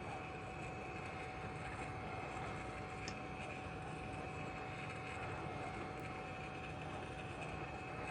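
Hot air rework station blowing steadily while reflowing the motherboard at 350 degrees: a constant rush of air with a steady thin whine through it.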